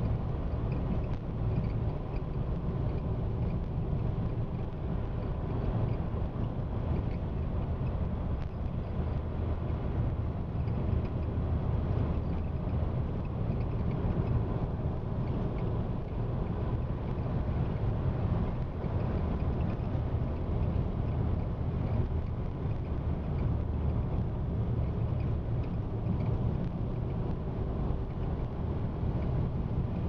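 Wind rumbling steadily on the microphone, a continuous low buffeting with faint outdoor hiss above it and no distinct events.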